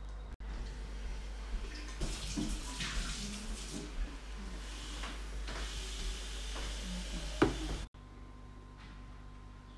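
Liquid poured from a small drinks carton onto muesli in a plastic cup, a splashing trickle in two goes, with one sharp knock near the end. It cuts off abruptly to quiet room tone.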